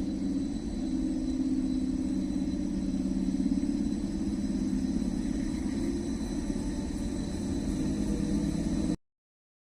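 Electric commuter train running along the track with a steady rumble of wheels and running gear. The sound cuts off abruptly about nine seconds in.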